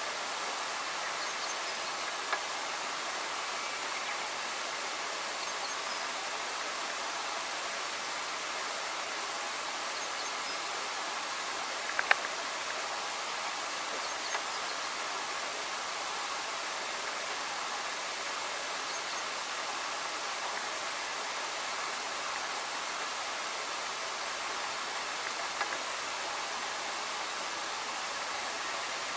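Steady rushing background noise, with faint high bird notes now and then and a sharp click about twelve seconds in.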